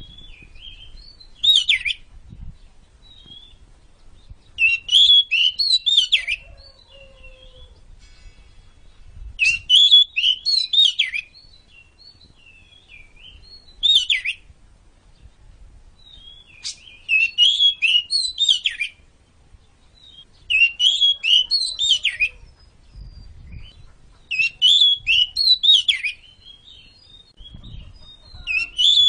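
Oriental magpie-robin singing: short phrases of quick, high, varied notes, each lasting one to two seconds, repeated about every three to four seconds, eight phrases in all.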